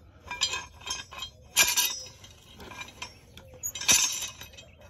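Steel crank handle of a screw-type stabilizer jack clinking as it is turned by hand on its threaded rod. There are several sharp metallic clinks, the loudest about one and a half and four seconds in, with light ticks between them.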